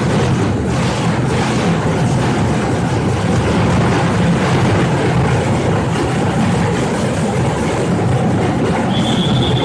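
A youth percussion group's snare drums and larger drums played together in a dense, continuous drumming with no single strokes standing out. A steady high tone comes in near the end.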